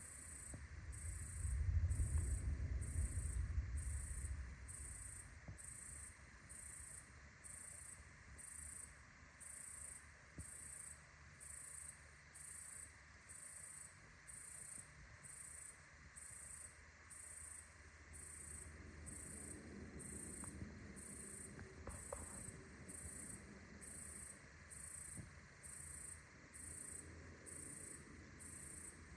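A cricket chirping in high, evenly spaced pulses, a little over one a second. Thunder rumbles low from about a second in for a few seconds, the loudest sound, and again more faintly about twenty seconds in.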